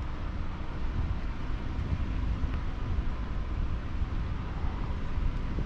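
Wind buffeting the camera microphone: a steady, fluttering low rumble.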